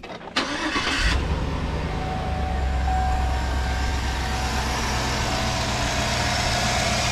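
2008 Chevy Tahoe's 5.3-litre V8 being cranked and catching about a second in, then running steadily at idle. It runs without the knocking it had before, now that the oil pickup tube O-ring has been replaced.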